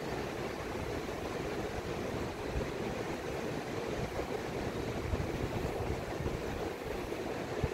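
Gulf surf washing onto the beach in a steady hiss of noise, with wind buffeting the microphone in uneven low gusts.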